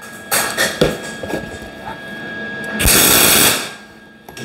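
MIG welder tack-welding a thin steel sheet-metal patch strip. There are a few short spurts of welding in the first two seconds, then a louder, longer burst of just under a second about three seconds in.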